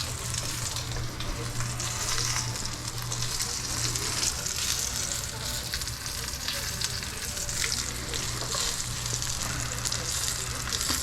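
Tomahawk roast, a bone-in ribeye, searing in a smoking-hot oiled pan: steady sizzling with many small crackles and spits as the fat renders, over a steady low hum.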